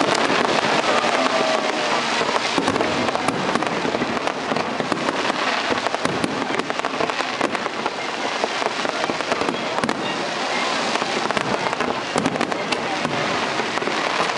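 Fireworks display: aerial shells bursting in an unbroken barrage of many pops and cracks in quick succession, at a steady level throughout.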